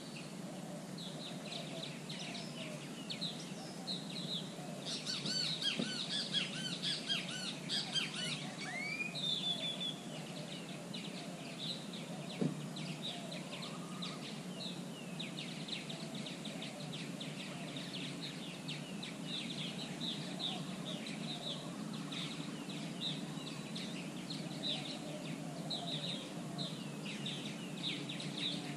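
Birds calling and chirping all through, many short high notes repeated over and over, with a busier burst of arching calls around five to eight seconds in and a rising whistle just after. One sharp tap stands out about twelve seconds in.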